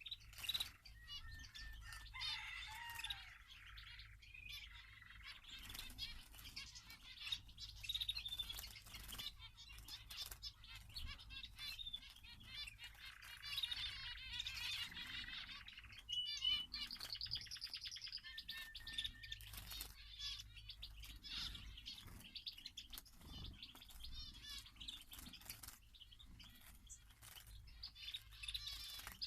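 Small aviary birds chirping and twittering, with frequent light wing flutters and flaps as they fly about.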